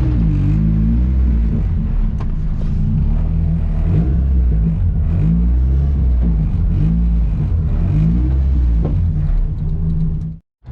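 Turbocharged Nissan KA24DE inline-four in a 240SX running at low speed. Its pitch rises and falls again and again with small throttle changes. The sound cuts off abruptly near the end.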